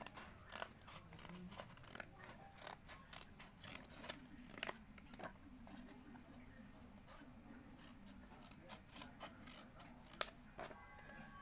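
Scissors snipping through thin cardboard: a faint, irregular run of short cuts and crunches, with one sharper snip about ten seconds in.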